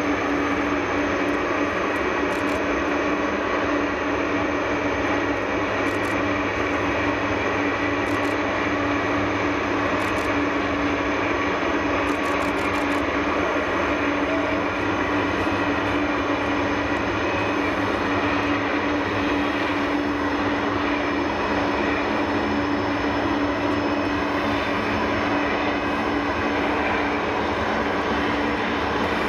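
Boeing 747-400's jet engines running steadily at idle on the ground: an even, unchanging noise with a constant tone through it.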